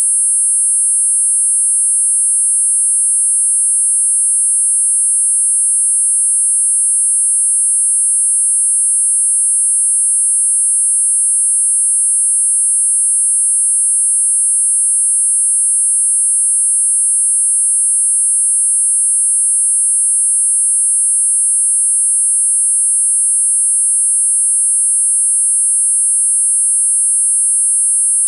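Four steady, high-pitched sine tones of 8.5, 9, 10 and 10.5 kHz sounding together without a break: a synthesized multi-tone tinnitus masker.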